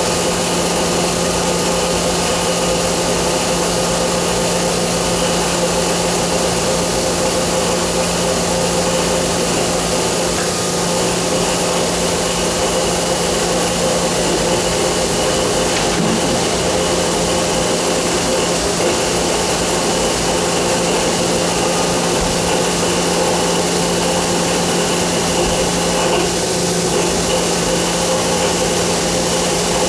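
Johnford SL650 CNC turning center running under power: a steady machine hum with several fixed tones over an even whirring noise, unchanging throughout.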